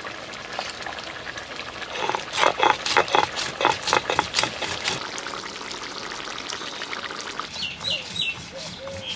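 Stone roller crushing dry-roasted cumin, black pepper and coriander seeds on a carved stone grinding slab (shil-nora): a run of rough grinding strokes, about four a second, from about two seconds in until about five seconds in, then quieter.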